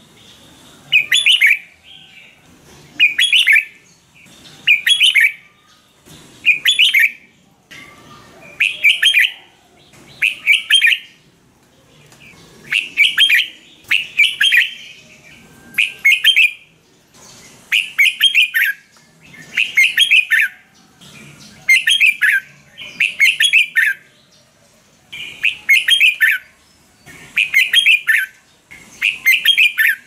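Red-whiskered bulbul singing: loud, short song phrases repeated over and over, about one every two seconds.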